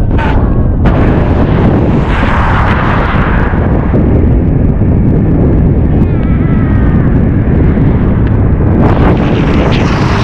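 Heavy wind buffeting the microphone during a fast downhill ride on an electric bicycle, a loud, steady rumbling rush.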